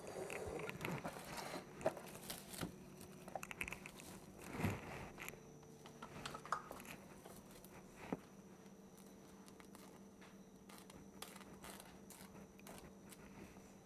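Plastic cling wrap crinkling as it is pulled out and handled, with scattered light clicks and knocks on the countertop, busiest in the first few seconds and sparser after.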